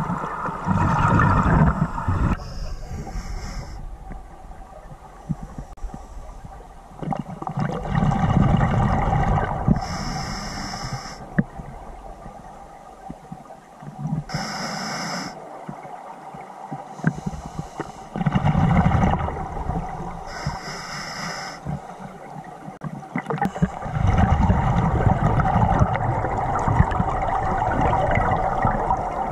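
Open-circuit scuba breathing underwater through a regulator: short hissing inhalations through the demand valve alternate with longer rushes of exhaled bubbles, about four breaths.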